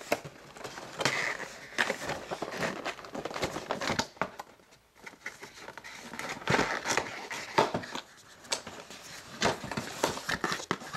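A cardboard figure box and its packaging being opened and handled by hand: irregular rustling and crinkling with many small clicks and scrapes of card, easing off briefly twice.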